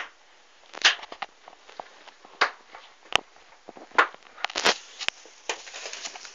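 Bubble wrap being popped: about a dozen sharp, separate pops at irregular intervals, some in quick succession.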